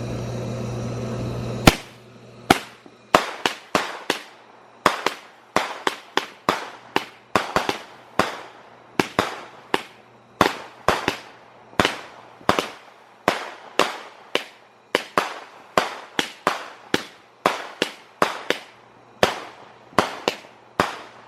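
Consumer firework cake ("Earthquake") firing its shots one after another, about two a second: a steady string of sharp bangs, each with a short echo.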